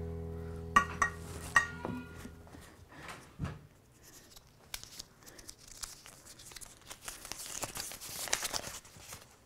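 Paper being crinkled and torn by hand: a dry rustle with small crackles through the second half. Before it, a held keyboard chord fades out, a few sharp clicks with a short ring sound around a second in, and a dull thump follows.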